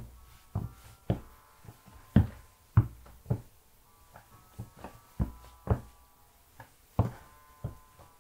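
Footsteps of chunky-soled sneakers on wooden floorboards: a dozen or so separate dull knocks, irregularly spaced, as the wearer steps and shifts his feet.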